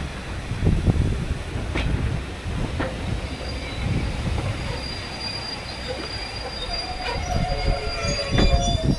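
A train moving along the track: a steady rumble with occasional knocks, and thin wheel squeal that grows through the second half.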